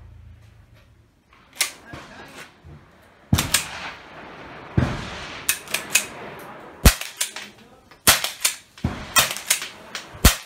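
Remington Model 12 pump-action .22 rifle firing .22 Long cartridges: several sharp cracks about a second and a half apart. Lighter metallic clacks between the shots come from the pump slide being worked to cycle the next round.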